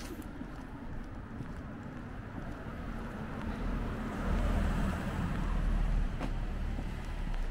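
A car moving past close by, its engine and tyre noise building up about halfway through into a low rumble. A single short click sounds near the end.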